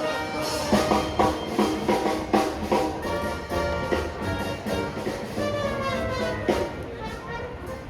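Instrumental music with brass and drums, played at a lively steady beat.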